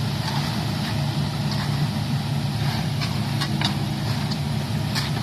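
Engine running steadily at a constant speed, with a few short knocks and scrapes scattered over it.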